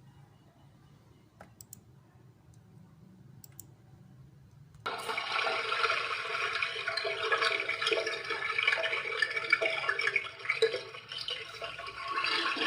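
A toilet flushing. After a quiet stretch with a few faint clicks, rushing water starts suddenly about five seconds in and keeps going.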